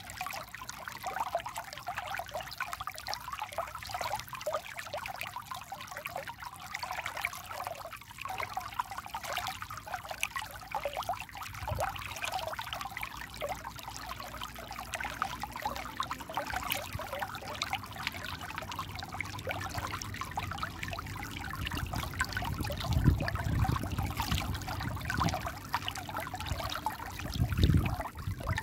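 Shallow stream trickling and babbling over rocks close by, a steady crackle of small splashes. In the second half, low rumbling swells come in a few times.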